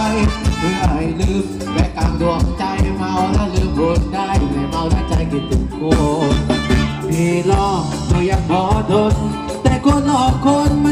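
Thai ramwong dance music played loud by a live band, a singer over a steady drum beat.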